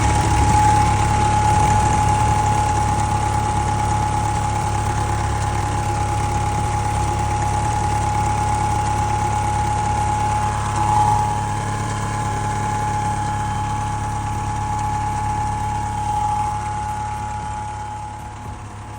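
Tata bus engine idling steadily with its air-conditioning running, a steady whine over a low engine hum. The AC refrigerant is circulating again after a blocked drier filter was replaced. The sound eases off a little near the end.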